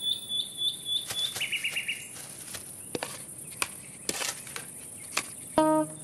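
Cartoon outdoor ambience of bird chirps. A high chirp repeats about four times a second, then stops about a second in. A brief run of faster, lower chirps follows, then scattered light clicks, and a few notes of music begin just before the end.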